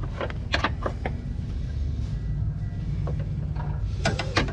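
Sharp metal clicks and clinks of a wrench working on the transmission cooler line fittings at the radiator, a few scattered taps with a small cluster near the end, over a steady low hum.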